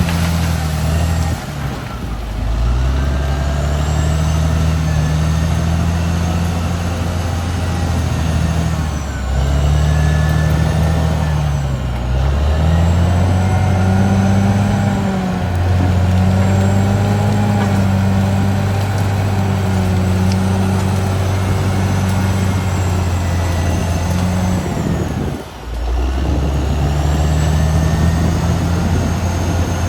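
Caterpillar D6R XL bulldozer's diesel engine running under working load, its pitch rising and falling as the load changes, with a high whine riding over it.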